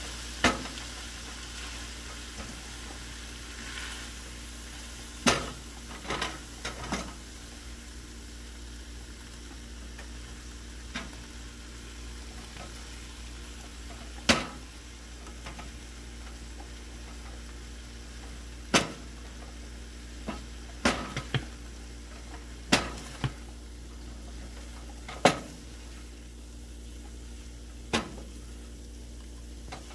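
Shredded cabbage and vegetables sizzling in a stainless steel skillet, stirred with a wooden spoon that knocks sharply against the pan every few seconds.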